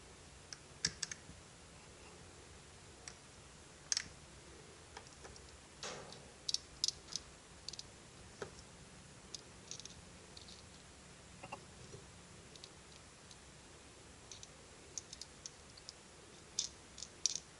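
Small parts of a cordless impact driver's mechanism clicking and tapping against each other as they are handled and fitted back together: irregular sharp clicks, a few in quick clusters, with the busiest runs around six to seven seconds in and near the end.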